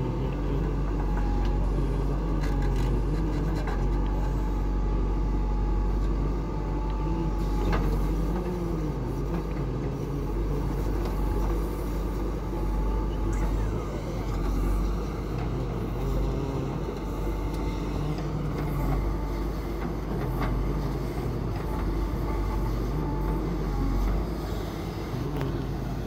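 JCB 3DX Super backhoe loader's four-cylinder diesel engine running under hydraulic load, its pitch rising and falling as the arm digs and swings, with a few short knocks.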